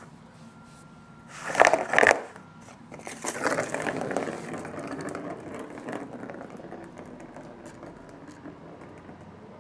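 Cat playing with a circular plastic track toy: the ball rattles and rolls around the track as the cat bats at it. Two loud knocks come about two seconds in, then several seconds of rolling and scraping that thins out to light clicks.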